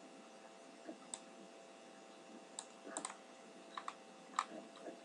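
Scattered computer mouse clicks, some in quick pairs, over a faint steady hum.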